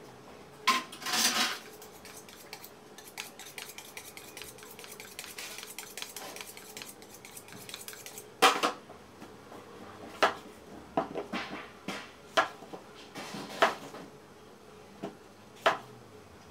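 Kitchen knife being sharpened on a honing steel: metal scraping against metal, with a fast run of light strokes in the first half and a series of separate sharp strikes in the second half.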